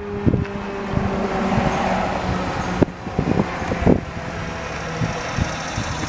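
The end of a Federal Signal 2001-SRNB electromechanical siren's wind-down, its slowly falling tone fading out within the first second. After that comes steady outdoor noise with wind on the microphone and a few thumps.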